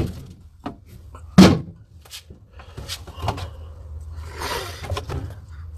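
Handling knocks and clicks, the loudest a single sharp thump about a second and a half in, then a noisy slurp from a small plastic container of raw seafood near the end.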